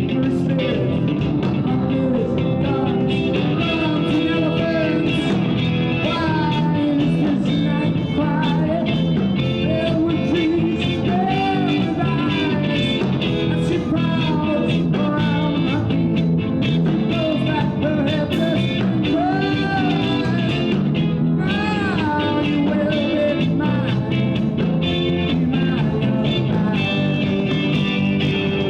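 Live rock band playing, with electric guitar; the lead line bends and slides up and down in pitch over a steady beat.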